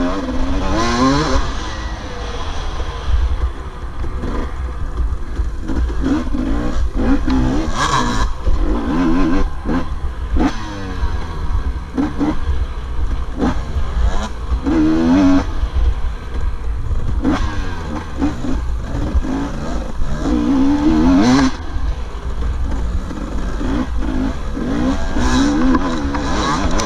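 Dirt bike engine heard from on the bike, revving up and easing off over and over while riding a dirt track, with wind buffeting the microphone.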